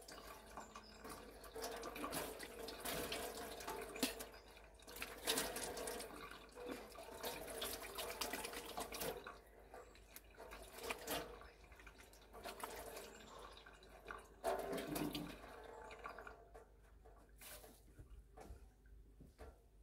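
Water from a tap splashing into a sink as someone washes their face with their hands, with drips and splashes; the splashing thins out in the last few seconds.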